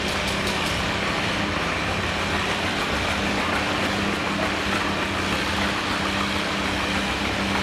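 Farmall tractor engine running at a steady speed, an even hum that does not rise or fall.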